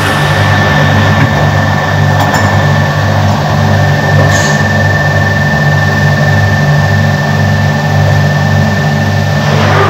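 Newspaper printing press machinery running loudly: a steady low mechanical drone with a rhythmic pulsing and a thin steady whine over it that drops out near the end.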